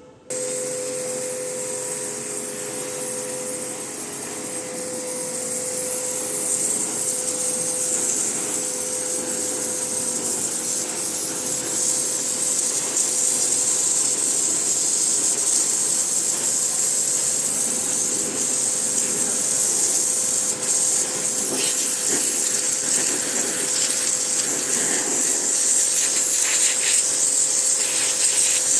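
Pressure washer starting abruptly and then spraying without pause: a loud, steady hiss of the water jet over a steady hum, which grows louder over the first ten seconds or so and turns uneven near the end.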